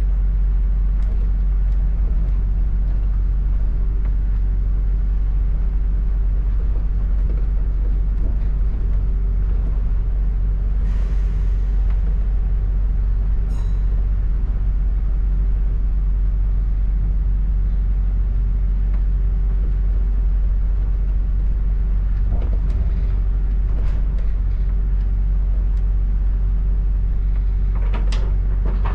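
London double-decker bus running, a steady low rumble and engine hum heard from inside the bus. There is a short hiss about 11 seconds in and a brief high beep a couple of seconds later.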